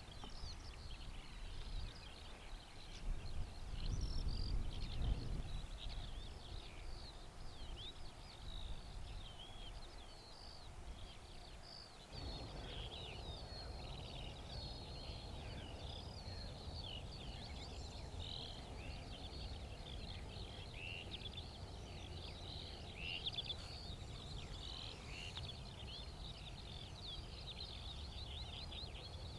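Songbirds singing outdoors: a dense, continuous run of rapid high chirps and trills. A gust of wind rumbles on the microphone about four seconds in, and a steady low rumble of wind noise sits under the birdsong after about twelve seconds.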